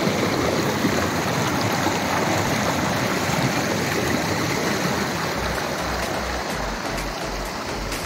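Clear spring water rushing and splashing over rocks and a low stone weir in a channel, a steady full rush of water. A low regular thumping, about two a second, comes in about five seconds in.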